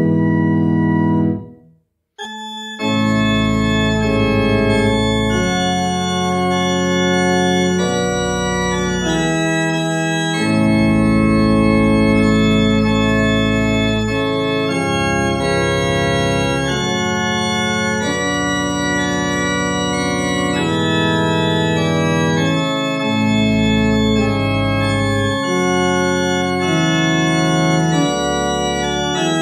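Church organ playing a hymn in full, sustained chords that change every second or so. The sound dies away about a second and a half in, and a new chord enters about a second later.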